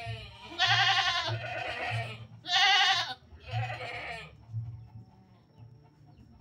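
Goat bleating repeatedly in quavering calls as it lies held down with its legs being tied. The bleating stops about four seconds in.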